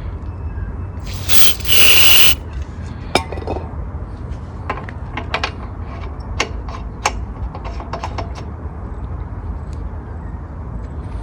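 Clicks and knocks of hands working on a lawnmower's small engine, with one loud hiss lasting about a second near the start, over a steady low hum.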